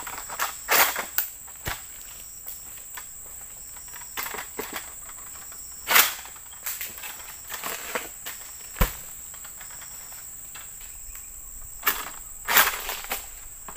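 Steady high-pitched insect drone, with scattered rustles and sharp knocks as a long-pole oil palm harvesting sickle (egrek) works at a palm's crown; the loudest knocks come about six and nine seconds in, with a few more near the end.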